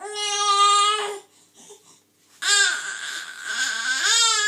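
Baby crying: a high wail about a second long, then after a short pause a longer, wavering cry that runs nearly two seconds.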